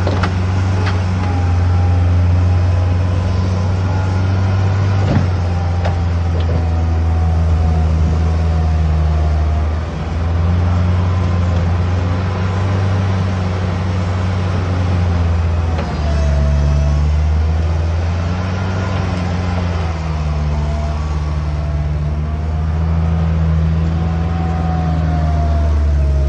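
Bobcat skid-steer loader's engine running steadily while it plows snow, with a fainter higher whine that drifts up and down in pitch. The engine note dips and shifts briefly about 10 seconds in and again about 16 seconds in.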